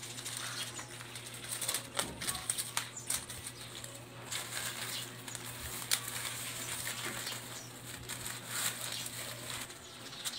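Thin plastic bag being handled and rustling, with scattered light clicks, over a steady low hum that stops near the end.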